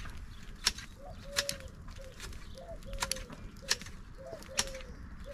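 A dove cooing a three-note phrase, short-long-short, repeated about three times, with sharp taps or clicks roughly every three-quarters of a second that are louder than the cooing.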